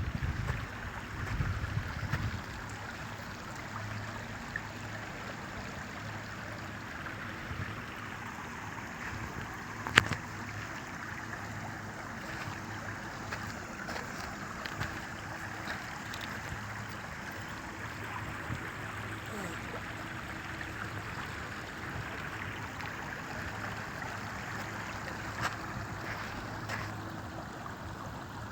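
Steady seaside wash of water along the shore, with a faint low hum underneath and a single sharp click about ten seconds in.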